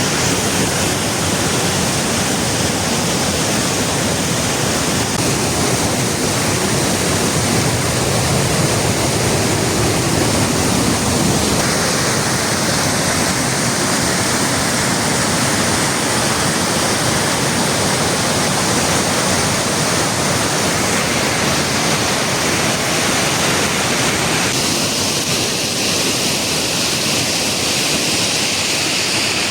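Waterfall rushing steadily, a loud, even roar of falling water. Its tone shifts abruptly twice, about a third and about four fifths of the way through.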